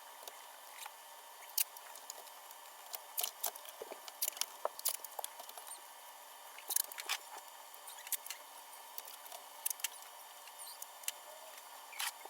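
Irregular light clicks, taps and small spattering sounds from work on an air conditioner being cleaned, over a faint steady hum.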